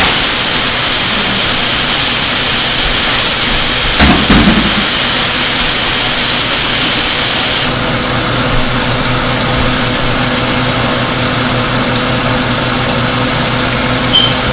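Floured chicken drumsticks deep-frying in a pan of grease: a loud, steady sizzle. There is a low thump about four seconds in, and the sizzle eases slightly just before eight seconds in.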